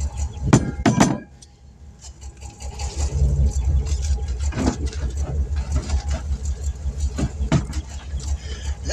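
Vehicle engine idling with a low, evenly pulsing rumble, with sharp knocks from the tire work over it, two loud ones about half a second and a second in and fainter ones later.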